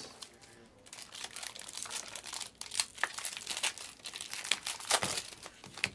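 A Panini Obsidian trading-card pack's wrapper being torn open and crinkled by hand: a rapid crackling from about a second in, with a few sharper snaps.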